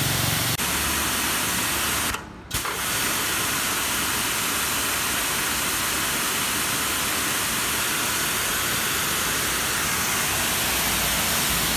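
High-pressure washer pump driven by a 3 kW electric motor, its lance jetting water into the air at about 160 bar: a steady loud hiss that briefly drops out about two seconds in.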